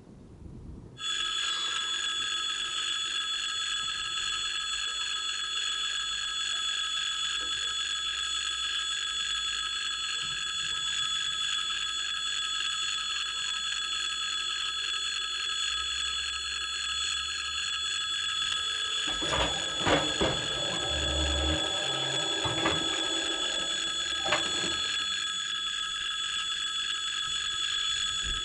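Railway level-crossing electric warning bell ringing continuously, starting abruptly about a second in. About two-thirds of the way through, a handful of mechanical clunks and low thuds sound over the ringing, as the barrier deck plates rise in the roadway.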